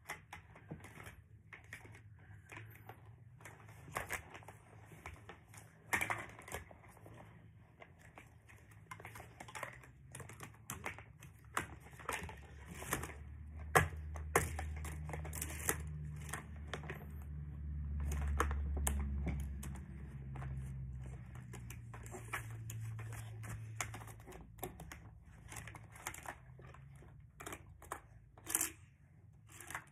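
Plastic Hot Wheels track pieces and supports being handled and fitted together: irregular clicks and clatters of hard plastic, with a low rumble that swells through the middle and fades.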